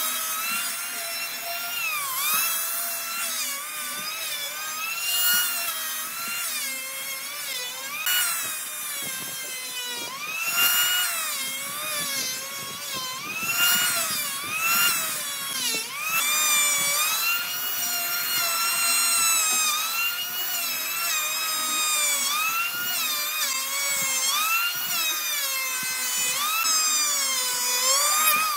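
Electric hand planer running and cutting along a wooden log slab. Its motor whine dips in pitch again and again as the blades bite under load, and rises between passes.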